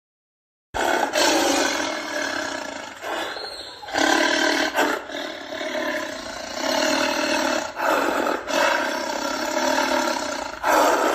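A big cat roaring in a string of rough calls, each lasting one to two seconds. The calls begin just under a second in and stop abruptly near the end.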